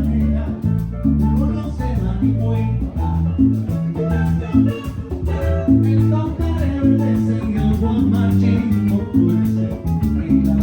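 A live band playing upbeat Latin dance music, with guitar and a steady bass line.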